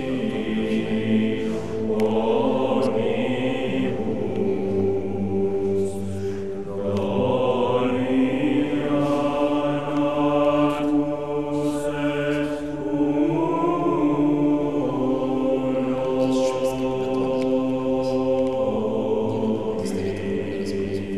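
Chanted singing in long held notes, moving slowly in pitch in phrases several seconds long.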